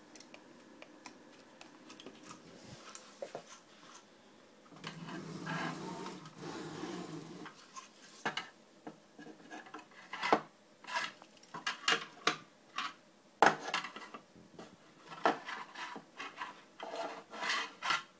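Handling noise of a 3D-printed plastic vacuum hose adapter. It starts with faint clicks, then a few seconds of rubbing about five seconds in, then a run of sharp, irregular knocks and scrapes as the plastic part is worked under the printer's metal rods and against its frame.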